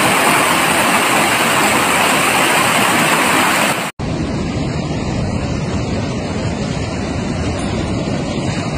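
Rushing floodwater: a loud, steady rush of fast-moving muddy water. It breaks off for an instant about four seconds in and goes on as a slightly quieter, duller rush of water.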